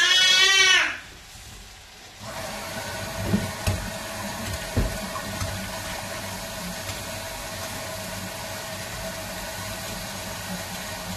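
Water running steadily into a kitchen sink while lasagne pasta is strained, with a few short clunks of a pot or strainer in the first few seconds. A loud brief scrape comes in the first second, before the water starts.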